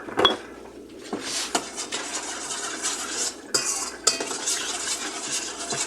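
A spoon stirring sauce in a bowl, scraping and clinking against the sides, after a sharp knock just at the start.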